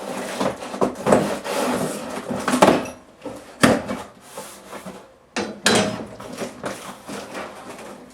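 Small cardboard parts box being cut open with a machete and its contents handled: irregular scraping and rustling of cardboard with several sharp knocks.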